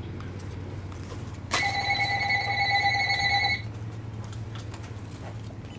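A telephone ringing: one steady electronic ring lasting about two seconds, starting about a second and a half in.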